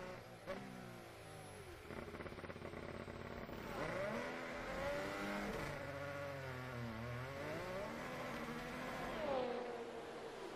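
Formula One car's 1.6-litre V6 turbo-hybrid engine during a pit stop, played back through the lecture hall loudspeakers: its pitch falls as the car slows into the pit box, then dips and climbs as it accelerates away.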